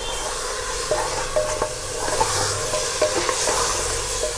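Mutton pieces frying in oil with freshly added ginger-garlic-onion paste, sizzling steadily while a wooden spatula stirs them round the steel pot, with small scrapes and knocks of the spatula against the pot.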